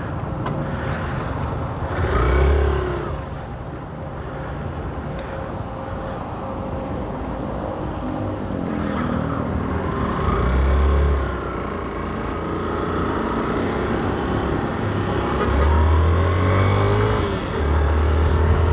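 Riding a motorcycle through city traffic: the engine and road traffic run throughout, the engine note rises and falls, and there are louder low rumbles about 2 s, 11 s and 16 s in.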